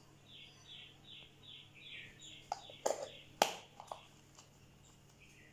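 A bird calling a quick run of short falling chirps, about three a second, for roughly three seconds. A few sharp clicks or knocks come in the middle of the run, the last one the loudest sound.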